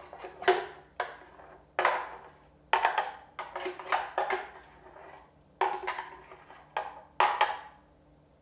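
A spoon knocking and scraping against the blender jar, an irregular string of sharp knocks with short ringing tails, as the last of the smoothie is scooped out. The knocks stop about a second before the end.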